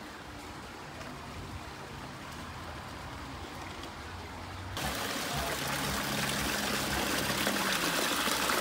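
Faint steady hiss with a low hum, then, from about five seconds in, the louder, even splashing of a small rockwork waterfall.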